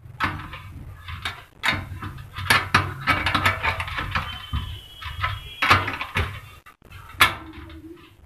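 Irregular clicks, knocks and metal clinks from hand-assembling a battery charger's sheet-metal cabinet, as terminal posts on the front panel are fitted and their nut tightened with a small spanner. A short faint squeak comes near the middle.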